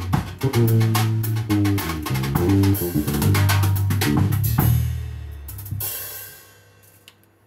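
Fretless bass guitar playing a line of low held notes over a drum kit, then the music stops on a final hit and a cymbal rings out and fades away.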